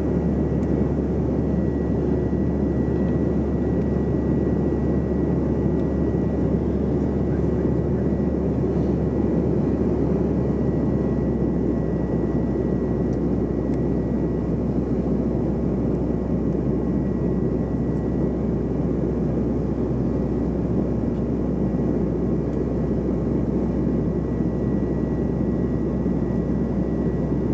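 Steady cabin noise inside a Bombardier CRJ700 jet in flight: the dense rush and drone of the airliner, with a thin steady whine above it. The low hum deepens slightly about eleven seconds in.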